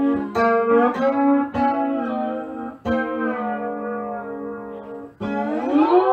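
Homemade prototype electric lap steel guitar played with a slide: plucked chords about five times, the notes ringing and bending in pitch, with a long slide upward near the end.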